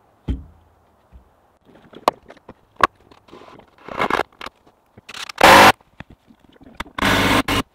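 Cordless drill driving screws into the wooden wall framing in two short bursts, about five and seven seconds in. Knocks and clunks of the wooden panels being fitted come between them.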